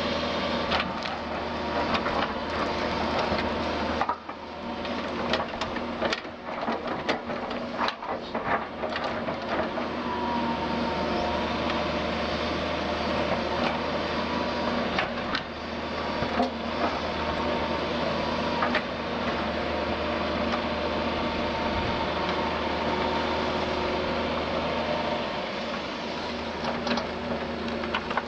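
Doosan DX180 LC excavator's diesel engine running steadily as the machine works, with scattered knocks and clunks, most of them between about four and nine seconds in.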